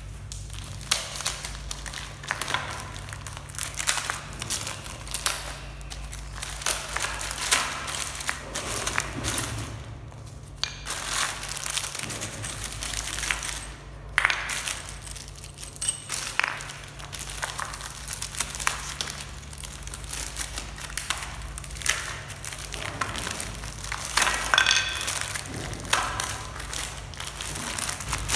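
Clear plastic wrapping film crinkling and crackling in irregular bursts as hands handle and pull at it around wooden curtain rod parts and rings.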